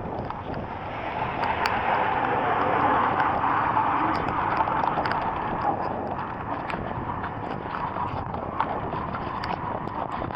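Heavy rain pouring down, an even rushing hiss with scattered drops ticking sharply on a nearby surface. The rush swells louder about a second in and eases off after a few seconds.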